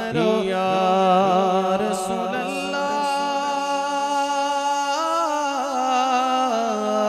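Male naat reciter singing a long, drawn-out note into a microphone, the pitch wavering in ornaments. The note steps up about five seconds in and settles back down near the end.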